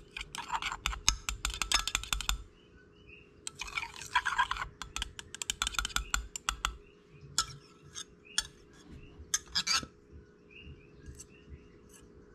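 Metal spoon stirring hot liquid plastisol in a glass measuring cup, clicking and scraping rapidly against the glass in runs of a second or two, then a few single taps near the end. A faint steady hum sits underneath.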